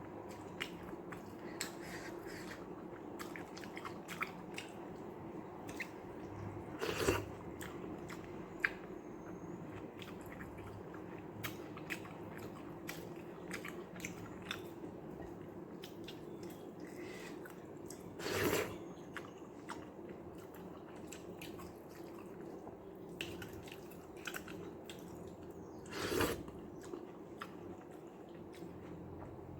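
Close-miked chewing and wet mouth sounds of a person eating white rice mixed with watery sambar: many small clicks and smacks, with three louder mouthfuls spread through the stretch.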